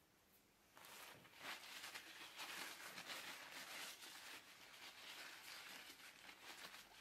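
Paper tissue rustling and rubbing against a glass round-bottom flask as it is wiped dry. A quiet, uneven scratchy rustle starts about a second in and goes on almost to the end.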